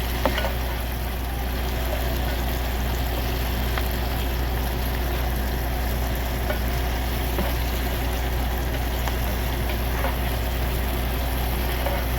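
Steady low hum of an idling truck engine, with faint frying from saltfish in a skillet and a few light ticks of stirring.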